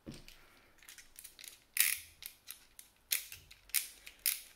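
Steel screwdriver tip nudging the gear set round inside a closed airsoft AEG gearbox (Arcturus AK12), making irregular sharp metal clicks and ticks, the loudest about two seconds in. It is a check that the gears spin freely once the shell is screwed together; the gears turn without real resistance, though not a full free spin.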